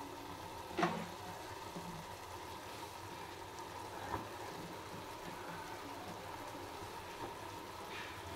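Vegetables frying in an aluminium pressure cooker over a gas burner: a steady low sizzle, with a sharp knock about a second in and a softer knock about four seconds in.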